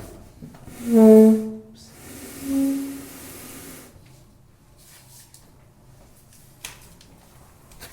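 Bed being pushed across the floor on plastic pads under its feet. It gives two short pitched groans, the first and loudest about a second in and the second slightly higher about two and a half seconds in, then a sliding hiss, with a couple of light knocks near the end.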